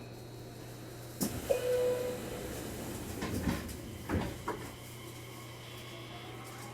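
Commuter train's sliding doors shutting with a bang, followed by a short steady tone and a few knocks from the carriage, over the train's steady hum.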